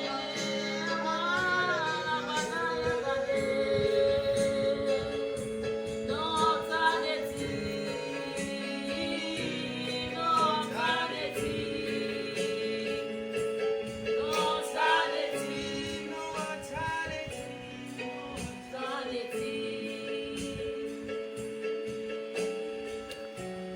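Gospel song: a woman singing held notes and winding vocal runs over sustained chords and a light, steady beat.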